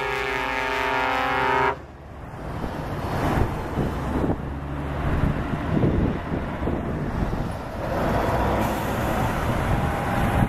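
A truck's air horn sounds a held chord of several tones and cuts off suddenly at about two seconds in. Then Scania tractor units drive past close by one after another, their engines and tyres running, louder as each one passes.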